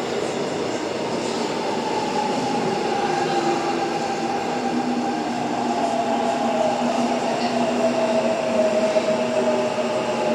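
Seoul Subway Line 1 electric train pulling into an underground station: a steady rumble of the cars on the rails, with a whine that slowly falls in pitch as the train slows.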